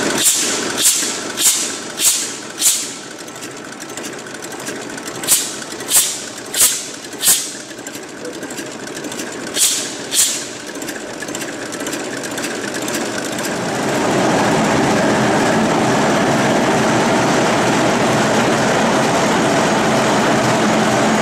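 Werkspoor TMAB 278 eight-cylinder diesel engine running, with sharp hissing puffs about 0.6 s apart in runs of five, four and two during the first ten seconds. About fourteen seconds in, the engine's running noise grows louder and then holds steady.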